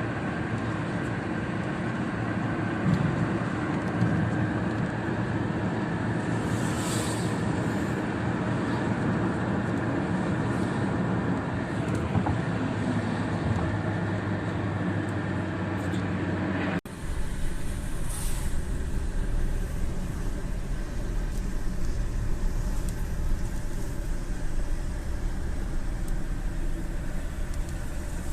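Rain on a car's windshield mixed with tyre and road noise from driving on a highway, heard inside the car: a steady hiss with a low hum and a couple of brief hissing swells. About seventeen seconds in the sound changes abruptly to a deeper, heavier rumble.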